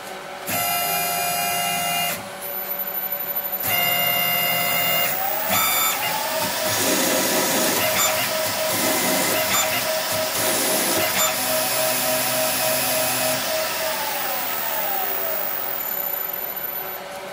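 Orac CNC lathe running a threading program: two short whines from the stepper-driven slides moving into position, then the spindle motor speeds up in a rising whine, runs steadily while the tool cuts a 40 tpi thread with a rougher cutting noise, and winds down to a stop a couple of seconds before the end.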